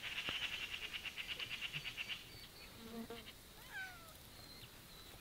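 A high, rapid trill of about ten pulses a second, which stops about two seconds in. Near the end, a domestic cat gives one short falling meow.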